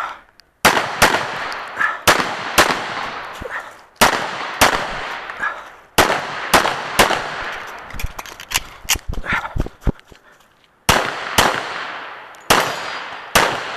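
A .45 ACP 1911 pistol fired rapidly during a practical-shooting stage run. The shots come mostly in quick pairs, each ringing out briefly, with a pause of about a second near the ten-second mark.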